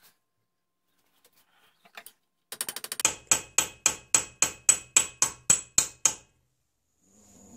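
Small hammer striking a brass ramrod pipe held in a bench vise: a quick flurry of light taps, then about a dozen even, ringing blows at roughly four a second.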